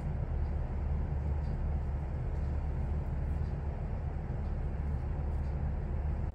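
Steady low rumble and hum of background noise with no clear events; it cuts off abruptly at the end.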